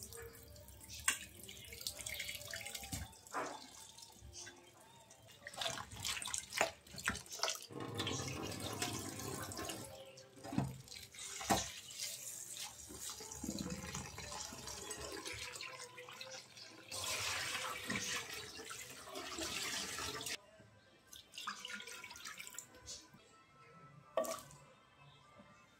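Water from a kitchen tap running into a sink for several seconds, with scattered clicks and knocks, and quieter stretches at the start and near the end.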